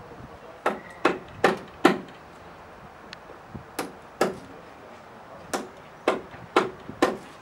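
Hammer blows on the wooden hull of a boat under construction: about ten sharp strikes, a quick run of four, then two, then four more, each a little under half a second apart.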